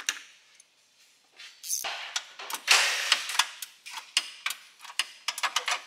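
Irregular sharp clicks and clinks of tools on metal, a few a second, with a short rush of noise about halfway through, as a car's front subframe is being unbolted.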